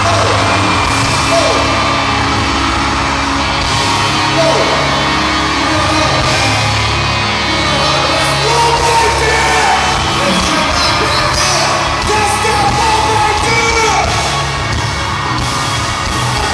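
Live pop concert music from a boy band's stage show, heard loud from within the crowd: amplified backing track with a steady bass, singing, and fans yelling over it.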